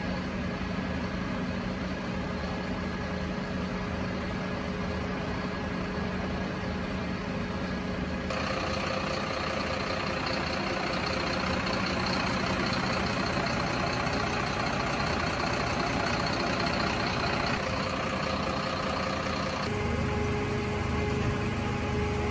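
Heavy vehicle engines idling steadily, a continuous hum with a few steady tones, changing abruptly about 8 seconds and 20 seconds in.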